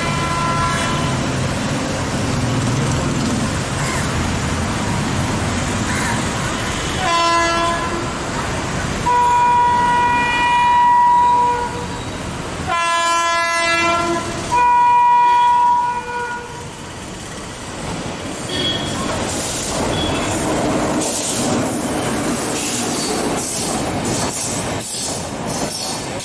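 Train locomotive horn sounding a series of blasts, one short at first, then a short one, a long one and two more in quick succession, as the train approaches. It is followed by the train passing with a rattling clickety-clack of wheels over rail joints.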